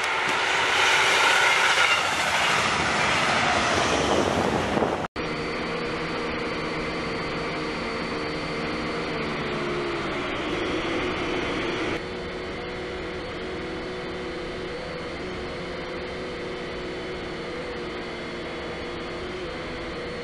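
An electric double-deck regional train runs past with loud, even rolling noise. About five seconds in, the sound cuts off abruptly and is replaced by the steady whine of a camera drone's propeller motors, a chord of several tones whose pitch shifts slightly now and then.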